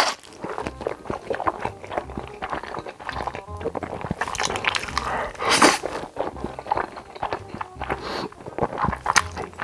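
Close-miked slurping and chewing of a huge mouthful of noodles, wet mouth clicks throughout, with one loud long slurp about five and a half seconds in. Soft background music plays underneath.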